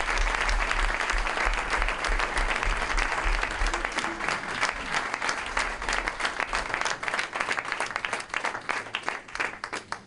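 Audience applauding, a dense steady clapping that thins out into scattered individual claps over the last few seconds.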